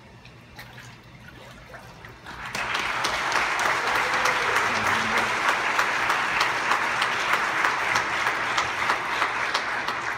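Crowd applause, dense clapping that breaks out about two seconds in, greeting a child just raised from immersion baptism.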